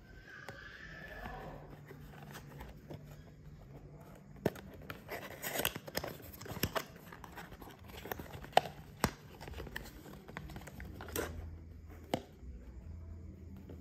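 A small product's packaging being opened and handled by hand: scattered clicks, crinkles and a few sharp snaps, busiest in the middle.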